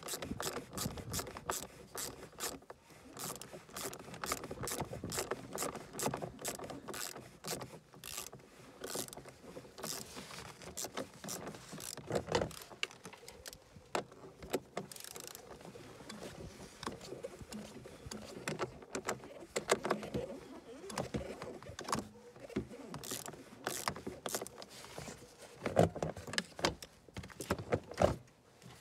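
Hand ratchet clicking in short, irregular runs as the nuts holding the engine cover are undone, mixed with tool rattles and a few louder knocks from handling the cover.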